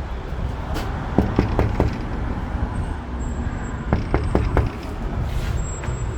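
Steady low rumble of road traffic, with two quick runs of four or five sharp knocks, about a second in and about four seconds in.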